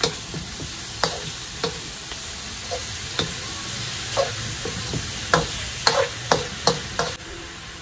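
Metal spoon stirring and scraping food around a frying pan over a steady sizzle of frying, with about ten sharp clinks against the pan that come closer together in the second half.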